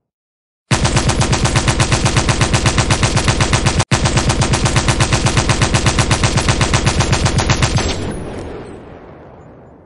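Belt-fed machine gun firing one long, evenly paced burst of rapid shots, with a split-second break just before the four-second mark. The burst stops about eight seconds in and trails off in a long echo.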